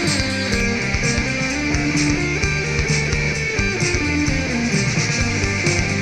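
Guitar-led music with a steady beat, played back through a budget in-ear monitor and recorded on a miniDSP measurement rig for a sound comparison.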